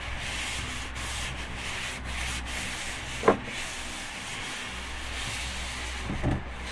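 Old engine oil draining from the sump of a 2024 Nissan Z into a drain pan: a steady hissing trickle, thin and running like water. One brief sharp sound comes about halfway through.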